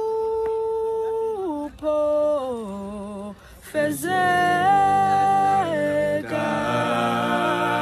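Background vocal music: a voice singing long held notes that step down in pitch, with more voices or layers joining about four seconds in and fuller still near six seconds.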